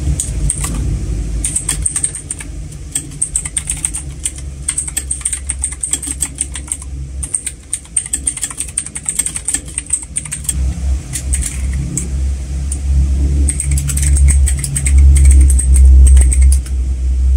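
Fast typing on pink mechanical keyboards with clicky blue switches, a Zeus ZK110 and an AOYEAH K169, giving a dense run of sharp key clicks. About halfway through, the typing moves to the other keyboard and gets louder and heavier.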